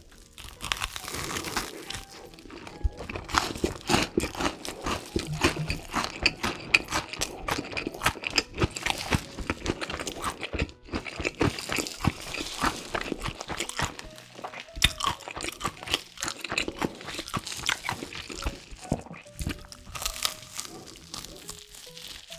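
Close-up crunching and chewing of crispy fried food, a Flamin' Hot Cheetos–crusted pork cutlet: a quick, irregular run of sharp crunches, with quiet music underneath.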